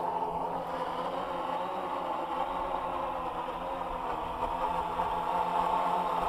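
AEE AP10 Pro quadcopter flying low: a steady buzzing hum from its propellers, several tones together that waver slightly in pitch.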